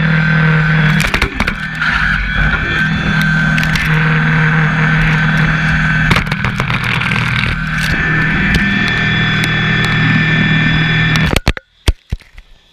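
John Deere tractor with a front-mounted Lane Shark brush cutter running steadily while pushing through brush: a constant low engine note and a high whine, with branches scraping and snapping against it throughout. About eleven seconds in, the sound cuts off suddenly, followed by a few scattered knocks as the mounted camera is knocked loose and falls.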